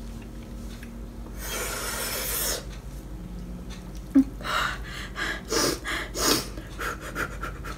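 A person breathing hard against the burn of very spicy noodles: one long hissing breath through the mouth about one and a half seconds in, then a quick string of short sniffs and huffs.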